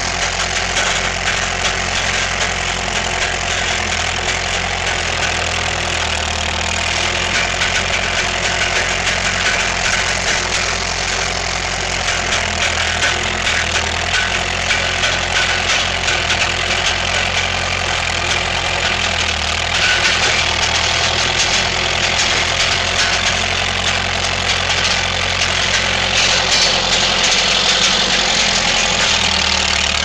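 Gehl 6625 skid steer's engine running close by, steady throughout, getting louder about two-thirds of the way through and again near the end as the machine works.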